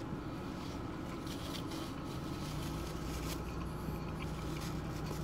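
Steady low hum of a car's air conditioning and running engine, heard from inside the cabin. A low drone joins in about halfway through.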